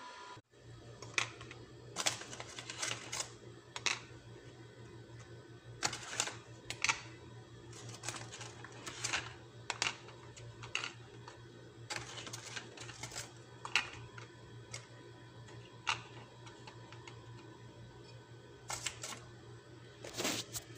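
Square biscuit crackers being laid and tapped into a plastic container: a string of irregular light clicks and knocks, over a steady low hum.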